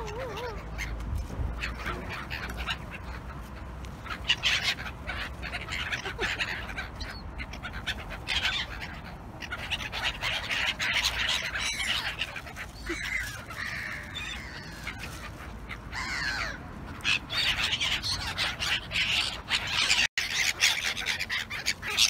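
A flock of black-headed gulls calling over and over in harsh, overlapping cries as they crowd in to be fed.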